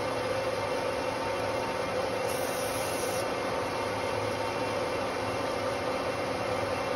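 Metal lathe running steadily, spinning a large electric motor armature while its copper commutator is turned down with a carbide tool. It makes an even machine hum with a steady mid tone, and a brief high hiss comes about two seconds in.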